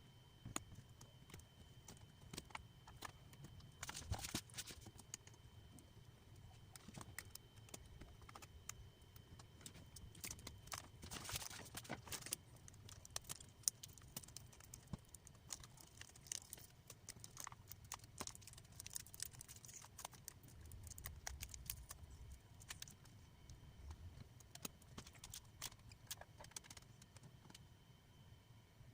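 Faint, scattered clicks and taps of small hard parts being handled, with a faint steady high whine behind them.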